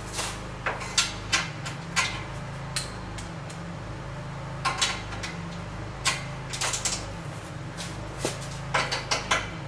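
Hand tools and metal parts clinking and knocking in irregular sharp taps, about a dozen spread through, over a steady low hum.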